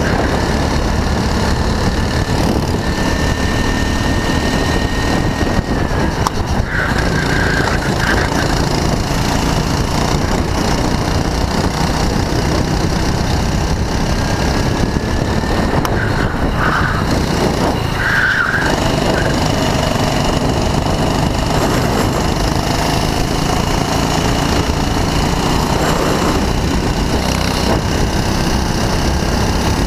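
Go-kart engine running hard under racing, heard from on board the kart, its pitch rising and falling as the driver accelerates and lifts through the corners.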